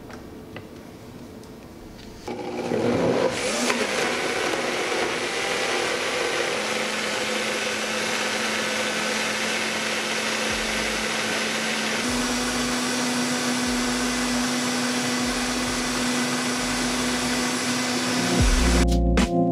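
Vitamix countertop blender switched on about two seconds in, its motor spinning up and running steadily as it blends fruit into a smoothie; its hum rises a little in pitch about halfway through. Music comes in near the end.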